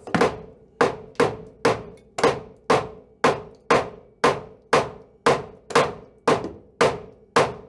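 Hammer tapping bent sheet steel on a 1964 VW Beetle's rusty floor-pan edge back down into shape: a steady run of about fifteen metallic strikes, roughly two a second, each ringing briefly.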